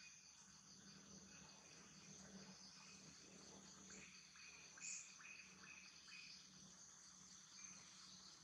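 Near silence: faint, steady high-pitched insect chirring, with a few soft short chirps and one brief tick about five seconds in.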